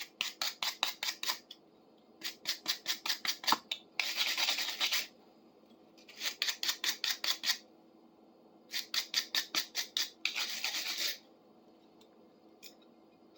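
Scrubbing strokes on a rusty pair of pliers, cleaning off loosened rust, in rapid back-and-forth runs of about seven strokes a second. There are four bouts with short pauses between them, and two of the bouts end in about a second of faster, unbroken scrubbing.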